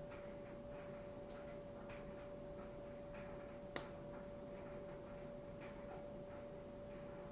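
A faint steady hum on one pitch, with a single sharp click a little past the middle.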